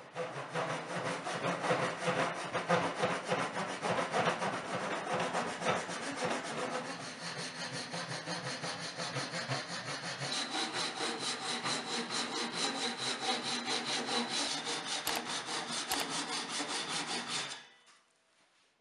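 Japanese ryoba pull saw cutting down into the end grain of a softwood leg in quick, steady, even strokes, sawing the slot walls for a castle joint. The sawing stops shortly before the end.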